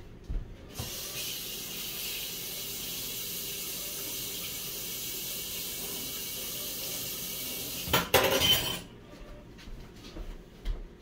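Kitchen tap running in a steady stream for about seven seconds. Near the end a louder splashing rush lasts under a second, then the water stops and utensils knock lightly a few times.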